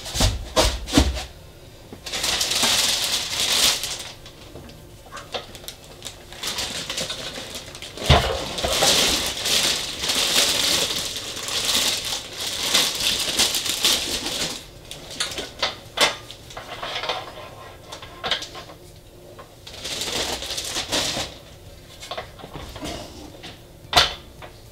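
Plastic wrapping rustling and crinkling in bursts of a few seconds as it is pulled off a metal telescope pier, with a few sharp knocks as the pier and packaging are handled.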